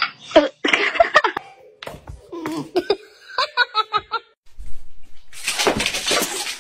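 A person laughing in quick repeated bursts, with about a second of loud rough noise near the end.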